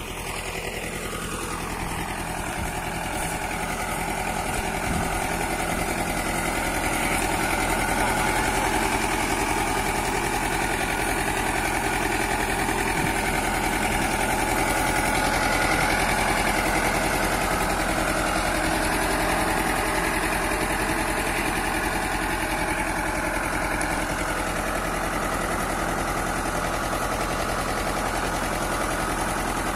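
A farm tractor's engine runs steadily under load as it pulls a potato lifter through the soil, digging up a row of sweet potatoes. The engine note drops in the first couple of seconds, then holds steady.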